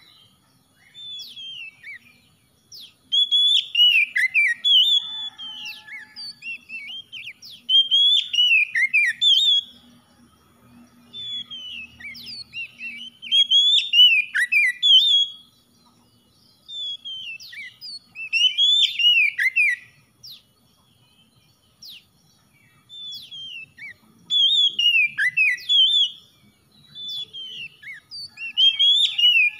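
Oriental magpie-robin singing: bouts of rich, varied whistled phrases, each lasting one to a few seconds, with short pauses between.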